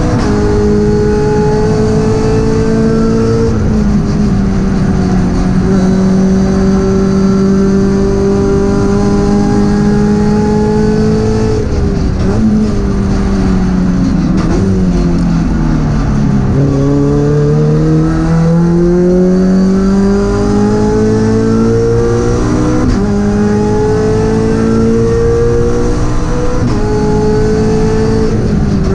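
Toyota GT86 CS Cup race car's flat-four engine heard from inside the cabin under hard driving. It holds a high, nearly steady note, then falls in steps around the middle as on braking and downshifting. It then climbs again through several gears, each rising pull cut by a sudden drop at the change.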